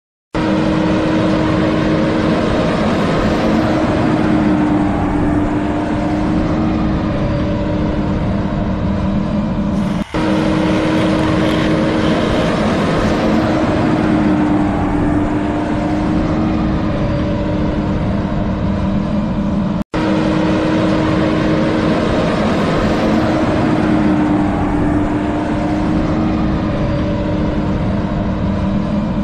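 Motor-vehicle engine sound effect running steadily with a constant hum. It is looped: it breaks off briefly and restarts about every ten seconds.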